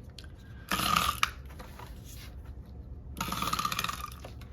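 Glue being applied to planner pages in two strokes, each a short rattling rasp well under a second long.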